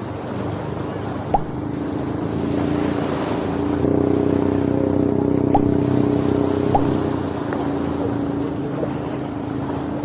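Small waves washing onto the shore under the steady drone of a boat engine out on the water, which grows louder about four seconds in and then holds. A few faint clicks.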